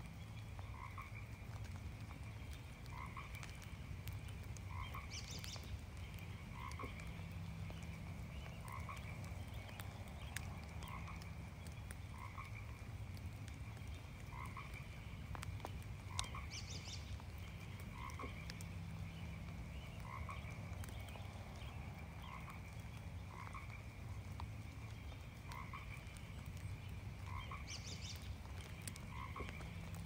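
A frog croaking over and over, short calls coming one to two seconds apart, over the steady hiss of light rain. A bird gives a brief high call three times.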